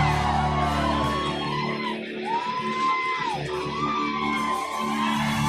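Live rock band playing the opening of a song, guitar to the fore, with shouts and whoops from the audience over it.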